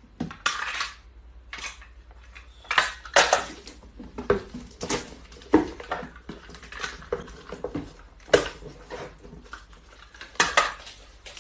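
Repeated, irregular clinks and clatters of hard objects knocking together, about a dozen over the stretch.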